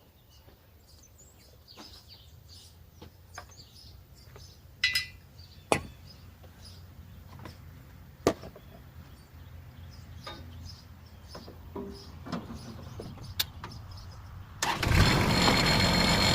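A Kubota L3130 tractor's diesel engine starts suddenly near the end and runs loudly and steadily. Before that, a few sharp clicks and knocks stand against a quiet background with faint bird chirps.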